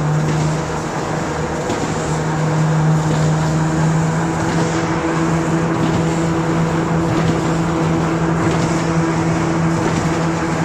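Corrugated-carton printing and slotting machine running: a steady mechanical hum with a constant low tone, joined about four seconds in by a stronger higher tone.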